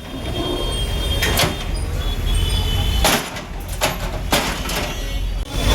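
A heavy diesel engine running low and steady, with about four sharp knocks and scrapes over it, typical of machinery tearing down roadside sheds.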